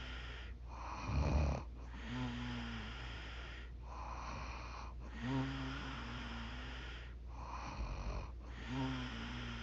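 A 45-year-old woman snoring in her sleep: a low, pitched snore on each in-breath, about every three seconds, three times. Each snore is followed by a softer, noisier out-breath.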